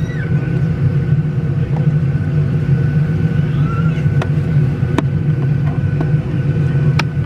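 Steady low cabin drone inside a parked Boeing 737-800 with its engines not yet started, a faint steady whine above it, and a few sharp clicks about four, five and seven seconds in.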